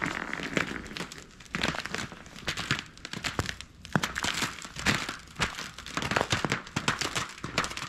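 Footsteps crunching through a crust of ice on the ground, about one crunchy step a second with crackling between.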